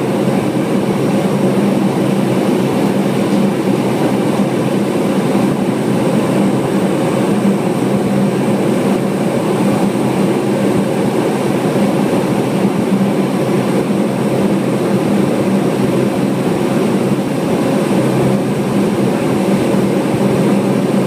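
C-130 Hercules turboprop engines running on the ground, heard from inside the cabin: a loud, steady drone with a constant low hum and propeller buzz.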